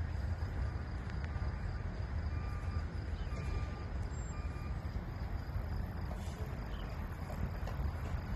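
Outdoor background: a steady low rumble, with a few faint short chirps repeated about once a second in the middle.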